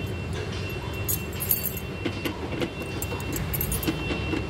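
A key poking and scraping in a small letterbox cam lock, with keys jangling on the ring and irregular light clicks and rattles: a wrong key that will not turn the lock. A steady low rumble runs underneath.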